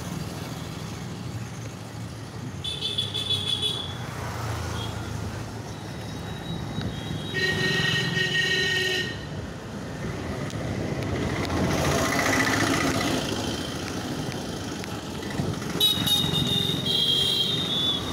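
Street traffic with vehicle horns: three separate horn toots, each a second or two long, about three, eight and sixteen seconds in, over a steady rumble of passing motor traffic.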